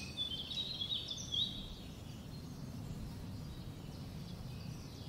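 European goldfinches twittering in quick chirps for about the first second and a half, then fading out, over a steady low background rumble.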